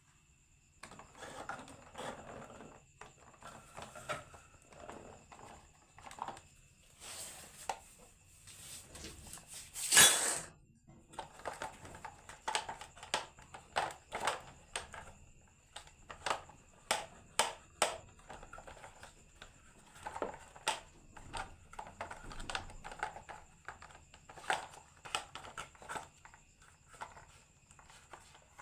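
Marbles rolling and clacking down a wooden marble run: irregular sharp wooden clicks and knocks, with a louder rattling clatter about ten seconds in.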